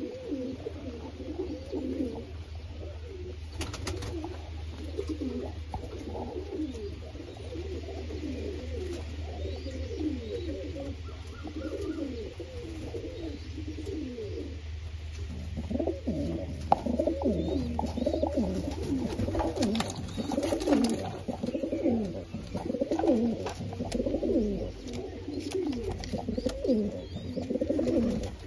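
Several high flyer pigeons cooing together, their coos overlapping without a break and growing busier and louder about halfway through. A low steady hum runs underneath and stops about two thirds of the way in.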